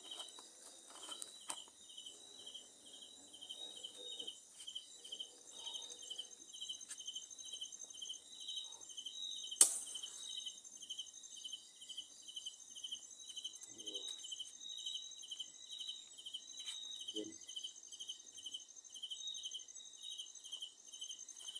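Insects chirping in a steady, even pulse of about two chirps a second, with one sharp click about halfway through.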